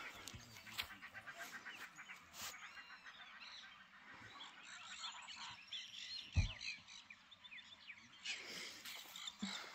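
Many birds calling and chirping over one another, with a fast run of repeated notes in the first few seconds. A low thump about six seconds in is the loudest sound.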